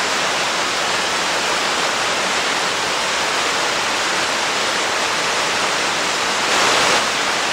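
Waterfall rushing steadily, heard close up, briefly a little louder near the end.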